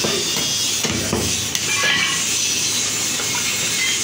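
Meat cleaver chopping mutton pieces on a wooden log block: several sharp chops in the first half, over a steady hiss.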